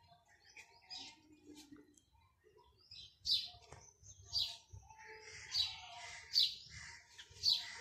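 A bird chirping: short, sharp high chirps repeated about once a second, faint at first and louder from about three seconds in.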